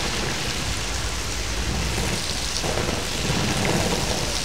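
Pool water feature pouring a stream of water into a swimming pool: a steady rushing splash, with splashing from a swimmer on an inflatable ring in the falling water.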